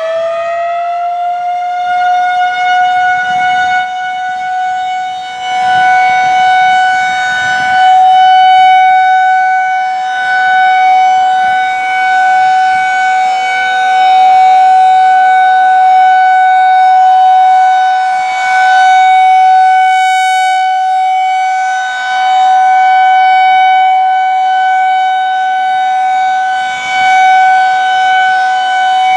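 Federal Signal 2001-SRNB rotating electromechanical outdoor warning siren sounding the steady Alert signal. Its pitch levels off at full speed in the first second, then holds one steady high tone with overtones, swelling and fading every five seconds or so as the rotating head sweeps past.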